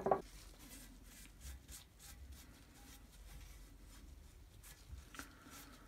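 A sharp knock as something is set down on a wooden workbench, then faint rustling and light ticks as a gloved hand fits a ring into the round recess of a drill press's cast base.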